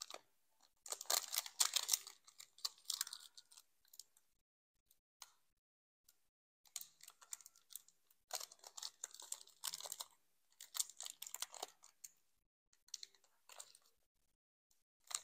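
Foil wrapper of a Pokémon booster pack crinkling in the hands as it is worked open, in bursts of one to three seconds with short pauses between.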